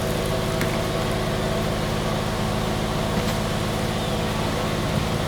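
Engine idling steadily, a low even hum that does not change.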